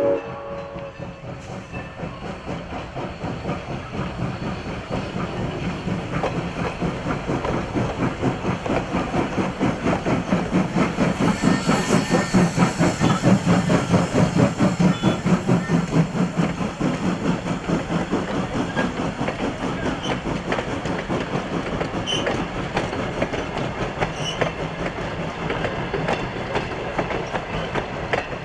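1906 Baldwin 4-8-0 steam locomotive No. 475 running past at close range with a fast, even rhythmic beat. The sound grows to its loudest about halfway through as the engine passes, then its passenger coaches roll by with wheels clacking over the rail joints.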